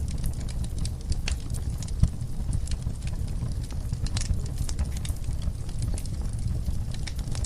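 Wood fire in a fireplace crackling: scattered sharp pops and snaps over a steady low rumble, with one louder pop about two seconds in.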